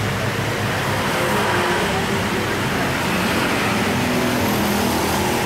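Heavy rain pouring down in a steady hiss, mixed with the running of motorbikes passing on the street.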